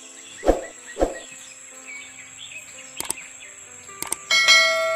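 Sound effects of a YouTube subscribe-button animation: two soft thuds, then mouse clicks about three and four seconds in, then a ringing notification-bell chime that slowly fades. A steady high insect drone runs underneath.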